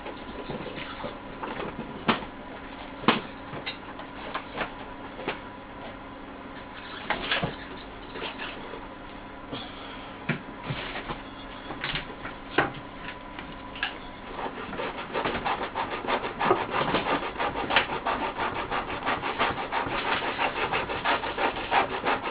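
Scattered taps and clicks of hand work on a loudspeaker under repair. About fourteen seconds in, fast continuous scraping and rubbing starts and grows louder toward the end.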